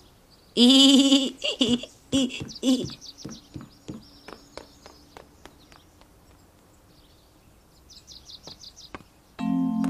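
Cartoon sound effects: a loud, high-pitched cry-like sound, then a run of clicks that come faster and fade away, and later a quick string of high chirps. Music starts just before the end.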